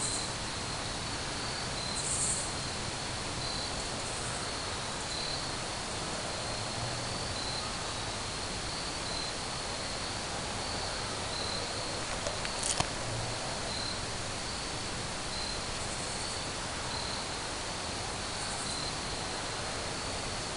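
Insects chirping in a faint, high-pitched pulse about once a second over a steady outdoor hiss, with one sharp click near the middle.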